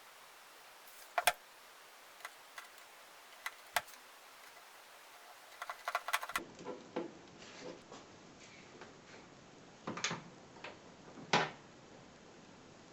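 Scattered sharp clicks and light knocks, irregular, from tools and parts being handled, with a denser cluster of knocks and rustling in the second half.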